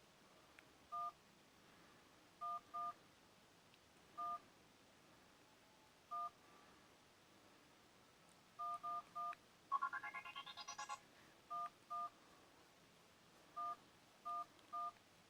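Sony Ericsson K810i mobile phone playing a preloaded ringtone made of short two-tone telephone keypad beeps, all at the same pitch and spaced irregularly. About ten seconds in comes a quick rising run of rapid pulsed beeps.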